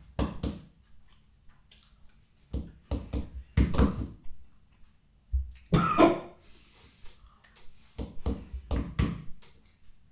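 A metal spoon knocking and scraping in a plastic bowl as a man eats wet dog food, with clusters of small clicks and mouth noises. About six seconds in comes a louder cough-like burst.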